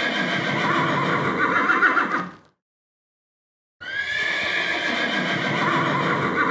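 Horse neighing, the same recorded whinny heard twice: one ends about two and a half seconds in, and after a gap of over a second it starts again, each ending in a quavering trill.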